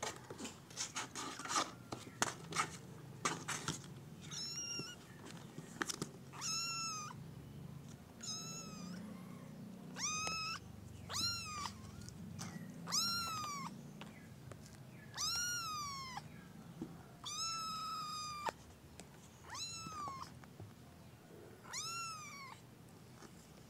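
Kitten meowing again and again: about ten high-pitched meows, each rising then falling, one every second or two. Rustling and bumps of the kittens being handled in the first few seconds.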